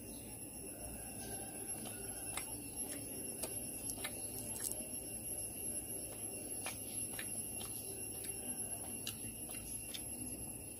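A steady high-pitched whine with faint sharp clicks scattered at irregular intervals, over low background noise.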